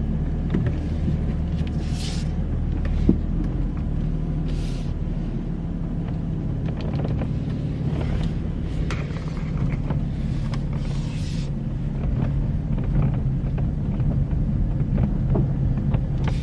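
Steady engine and road rumble inside the cabin of a BMW F80 M3 on the move, with short, intermittent creaks from the door seals, which creak because they have dried out, a common M3/M4 complaint.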